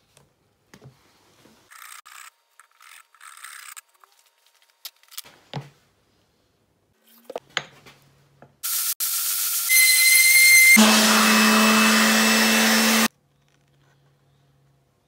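Wooden pieces scraping, rubbing and knocking lightly on a workbench as they are handled. Then a power tool runs loudly for about four seconds and cuts off suddenly.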